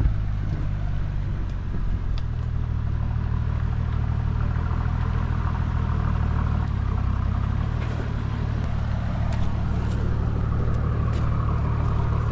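Toyota LandCruiser 80 Series engine running steadily at low revs under load as the four-wheel drive crawls over a rock ledge, with a few sharp clicks scattered through.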